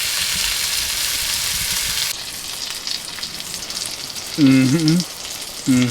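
Prime rib steak sizzling as it fries over a wood stove, a loud steady hiss that cuts off suddenly about two seconds in. A quieter, fainter sizzle follows, with two short hums from a person's voice near the end.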